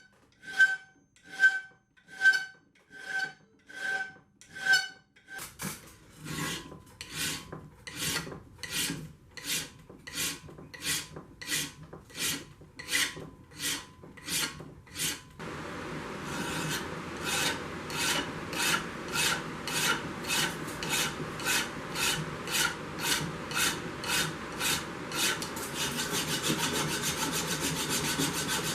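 Hand file rasping back and forth across a forged 1085 carbon steel corkscrew blank, shaping the bolster and its transition into the tang. The strokes come steadily, slower with a ringing tone in the first few seconds, about two a second after that, and much quicker near the end.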